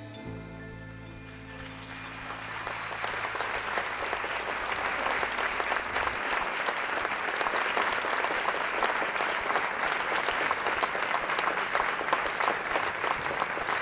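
The band's last held chord dies away in the first two seconds. Then a large audience applauds, the clapping swelling and growing louder.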